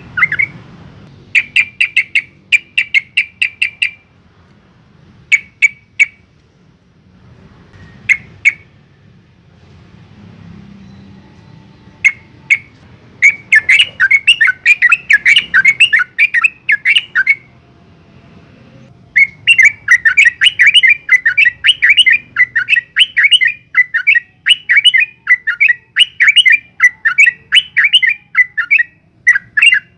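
Yellow-vented bulbul (trucukan) singing long, fast runs of sharp chattering notes, several a second. Short bursts come early, then a longer run, then an unbroken run over the last ten seconds or so.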